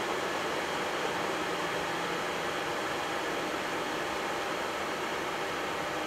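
Steady, even hiss of the Boeing 737-800 flight deck during a slow taxi: air-conditioning airflow over the engines running at idle.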